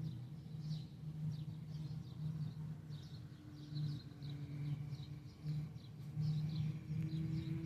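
Small birds chirping in short, quick repeated notes over the steady low drone of running farm machinery engines.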